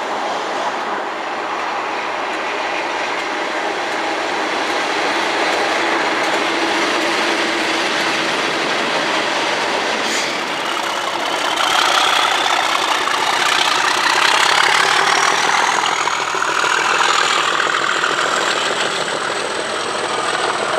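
Diesel locomotive passing along the track, a continuous rumble of engine and wheels on rails that grows louder about halfway through. A thin high whine climbs steadily in pitch through the second half.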